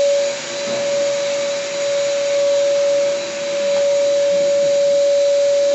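Dust-free wall sanding machine with vacuum extraction running steadily: a constant motor hum over a rush of air. The level dips briefly twice.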